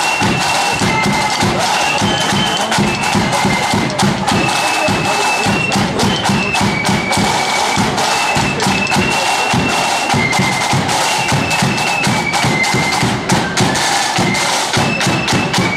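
Marching flute band playing: a high flute melody over rapid snare drumming and steady bass drum beats.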